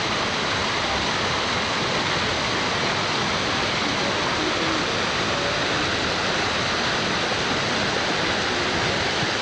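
Waterfall: water cascading over rocks, a steady rushing noise.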